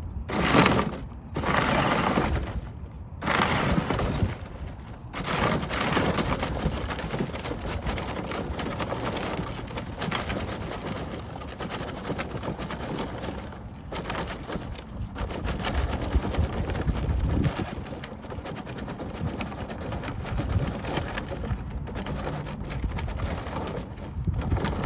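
Battery-powered ride-on toy truck driving over rocky gravel, its hard plastic wheels crunching on the stones, with a few short breaks in the first five seconds.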